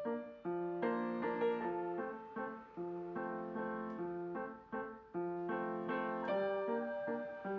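Background piano music: a repeating phrase of held notes and chords.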